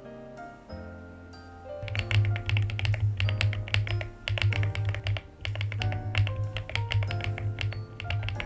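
Rapid typing on a keyboard fitted with Yunzii pink ice-cream keycaps, a dense run of key clicks starting about two seconds in, over background music with a steady bass beat.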